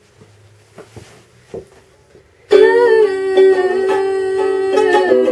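A few faint taps and handling noises, then about two and a half seconds in a ukulele is suddenly strummed loudly, ringing chords with repeated strokes and a change of chord near the end.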